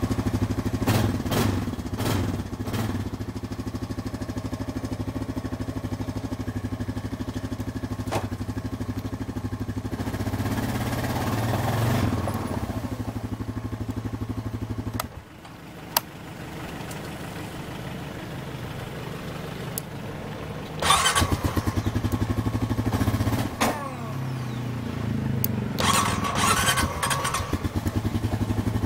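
Honda TRX420 Rancher ATV's single-cylinder engine running with an even firing beat, dropping away sharply about halfway through, then starting and running again some six seconds later. The uploader ties this misfire to the front-brake start interlock.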